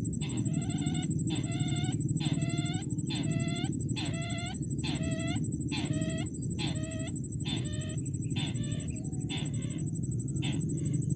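Sintar (rail) calls: a regular series of short, harsh, clucking notes, about one every 0.7 seconds, that weaken and shorten after about eight seconds, the lure call used to draw the bird to the trap. A steady low rumble and a thin high whine run underneath.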